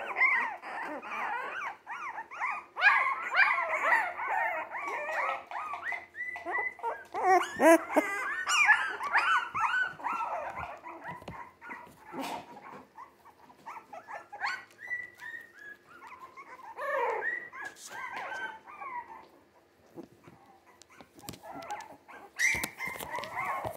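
A litter of three-week-old Jack Russell terrier mix puppies whining at once, many overlapping high squeaky cries that are dense for the first ten seconds or so, then thin out to scattered whimpers with another short burst later on.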